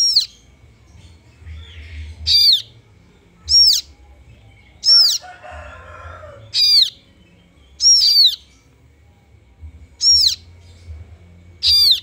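Nestling kaso-kaso birds giving short, shrill calls that slur downward, repeated about eight times at intervals of one to two seconds, one of them doubled about eight seconds in.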